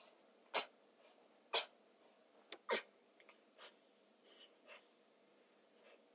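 Short, forceful breaths blown out with each sit-up, about one a second, strongest over the first three seconds and then a few fainter ones.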